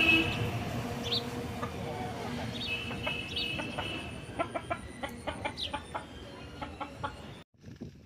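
Aseel chickens clucking: short calls scattered through, coming in a quicker run of short notes in the second half. A held horn note dies away right at the start, and the sound cuts off shortly before the end.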